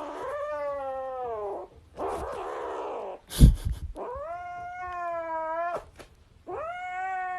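A cat yowling in three long, drawn-out calls, the first sliding down in pitch at its end. Between the first and second call comes a breathy rush of noise, and about three and a half seconds in there is a sharp thump, the loudest moment.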